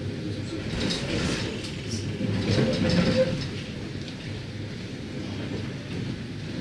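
Tatra T6A5 tram running on its rails, heard from inside the car: a steady rumble of wheels and running gear with rattling noise, swelling to its loudest about three seconds in, where a brief squeal rises above it.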